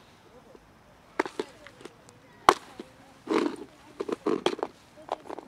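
Lidded plastic food box being handled on concrete: a string of sharp plastic clicks and knocks, the loudest about two and a half seconds in, with a brief rattle of dry cat kibble soon after.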